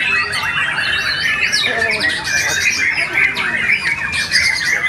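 White-rumped shama (murai batu) singing without a break: a dense, fast run of whistles, trills and chattering notes, overlapping with other birds singing around it.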